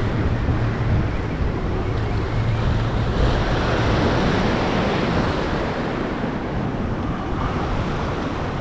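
Ocean surf breaking and washing over jetty rocks, with wind rumbling on the microphone; a wave swells up a few seconds in and then recedes.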